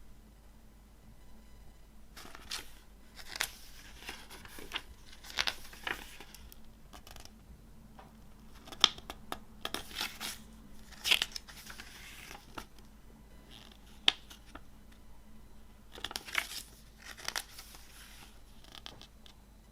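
Plastic shrink-wrap on a CD case being torn and crinkled in irregular bursts, with sharp clicks as the case is handled.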